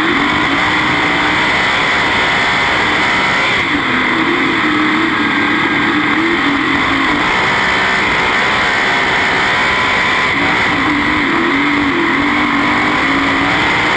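Two-seater winged sprint car's 900-horsepower methanol-burning V8 running hard on a dirt track, recorded onboard so the engine is very loud and close. The engine note rises and falls in two stretches.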